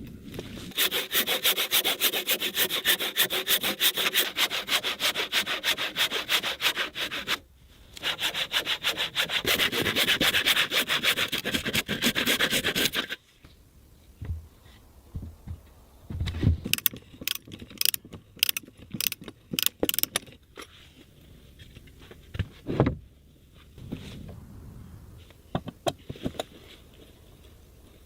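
Hand saw cutting through wood in quick, even strokes, in two runs of about six and five seconds with a short pause between. Then a series of scattered light knocks and taps on wood.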